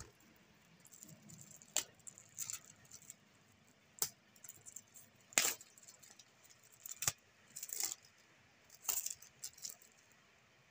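A cardboard product box in a plastic wrapper being handled and picked open by hand: irregular sharp clicks and short crinkling rustles of plastic and card.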